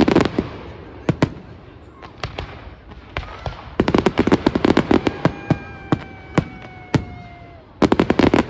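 Fireworks display: single sharp bangs and dense volleys of rapid crackling bangs, the volleys near the start, about four seconds in and near the end. A long whistle, falling slightly in pitch, runs from about five seconds in to about seven and a half.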